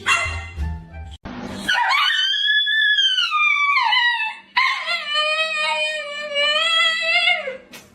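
A dog barking briefly, then howling twice: a first howl that rises and falls in pitch, and a second long, held howl that drops at its end.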